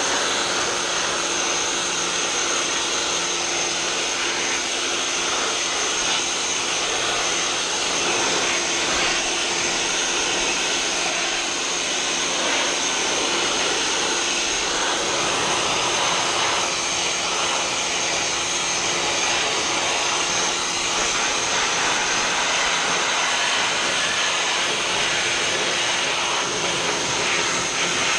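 PowerWorks 2000 PSI electric pressure washer running steadily with the trigger held: the electric motor and pump whine under the hiss of the water jet spraying onto house siding.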